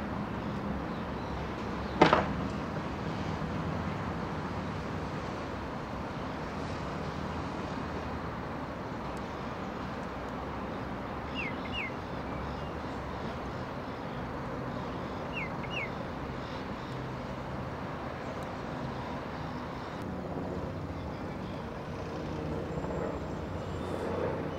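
Steady outdoor background rumble, broken by one sharp crack about two seconds in. Two pairs of short, quick high chirps come later, a few seconds apart.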